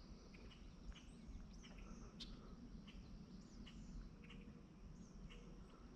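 Quiet outdoor ambience: faint, scattered short bird chirps over a steady high insect whine and a low rumble.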